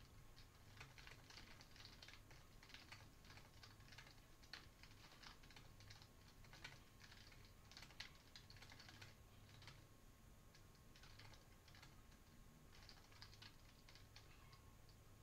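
Faint typing on a computer keyboard: quick runs of keystroke clicks with brief pauses between words and phrases.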